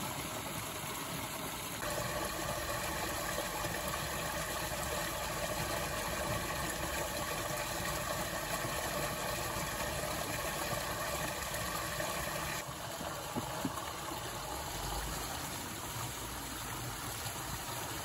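Water gushing steadily out of a concrete culvert opening and splashing into a concrete irrigation ditch, running freely now that the clogged intake has been cleared. The rush grows fuller about two seconds in and eases back a little near thirteen seconds.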